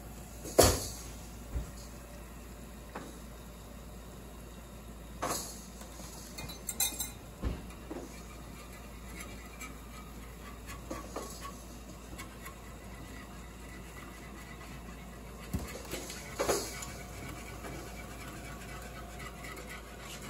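Cookware and utensils being handled on a stovetop: scattered knocks and clinks of pots, pan and a whisk, the sharpest knock about half a second in, with a steady low background hiss between them.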